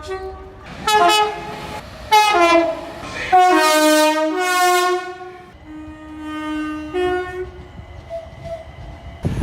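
Train air horn sounding a series of chord blasts: two short ones, then longer held ones, some of the notes sliding lower in pitch as the train passes, over a low rumble.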